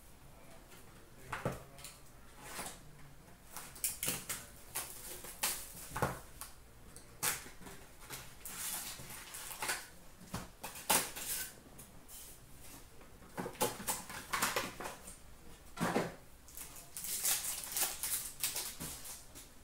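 Hockey trading card packs being opened and the cards handled by hand: pack wrappers crinkling and cards sliding and clicking against each other, in irregular bursts of rustling.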